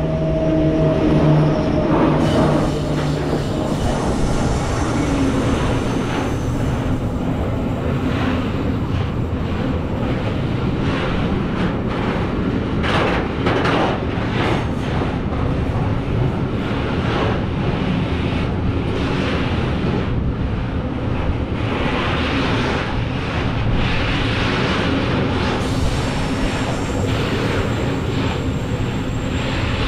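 SŽ class 363 electric locomotive passing close by with a steady electric hum, loudest in the first couple of seconds. Its train of container flat wagons then rolls past in a continuous rumble of wheels on rail, with repeated clicks over the rail joints.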